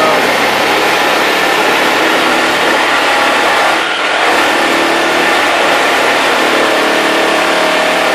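Handheld power tool running steadily at high speed, cutting through the nails that hold a gutter to the fascia board.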